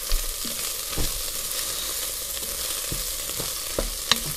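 Rice grains toasting in a hot pot, sizzling steadily, with a spatula stirring and scraping against the pan and giving short knocks, the sharpest about four seconds in.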